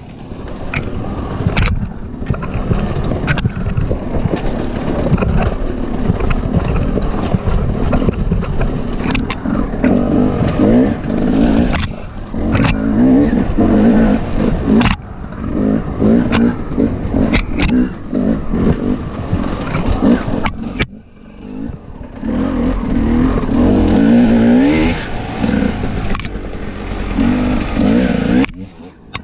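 Husqvarna TE300 two-stroke enduro dirt bike engine revving up and down as the rider works the throttle, falling away briefly several times when the throttle is closed. Scattered sharp knocks sound over the engine.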